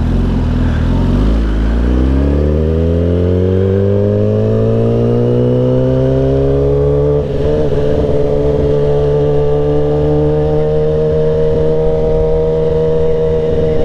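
Kawasaki sportbike's inline-four engine pulling away from a stop, its pitch rising smoothly for several seconds. After a brief dip about seven seconds in, it settles into a steady drone at cruising speed.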